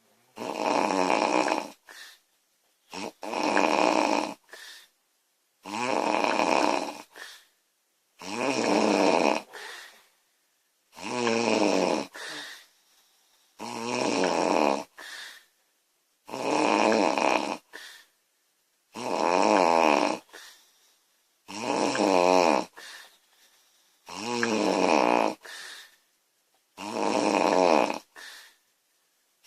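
A woman snoring loudly in a steady rhythm, about one snore every two and a half seconds, each snore followed by a shorter, fainter breath.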